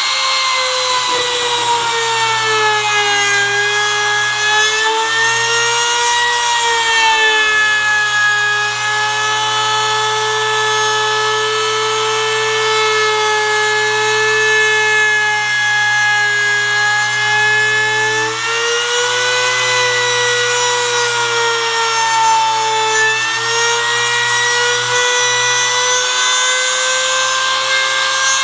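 Electric trim router running at full speed while its bit cuts a decorative pattern into a softwood board. Its high whine sags in pitch and recovers several times as the bit is pushed into the wood.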